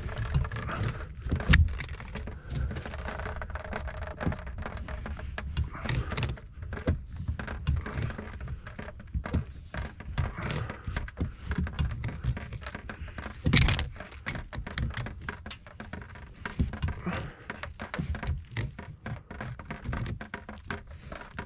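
Channel-lock pliers working at the cap of a brass water pressure reducing valve to unscrew it: a run of short clicks and knocks, with two louder knocks about a second and a half in and about two-thirds of the way through.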